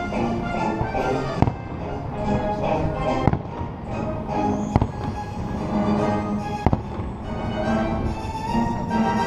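Fireworks going off in the distance: about four sharp bangs a couple of seconds apart, heard over the show's music.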